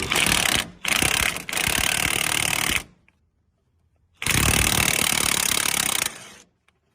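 Impact wrench hammering in bursts on a stubborn nut or bolt: three short runs, a pause of over a second, then one longer run of about two seconds.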